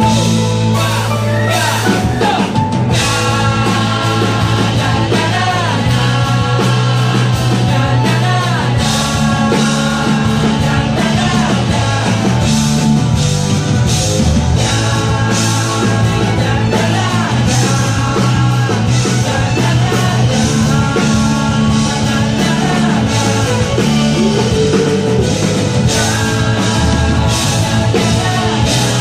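Live pop-rock band playing: a male lead singer sings over his strummed acoustic guitar, backed by electric guitar, keyboard and a drum kit keeping a steady beat.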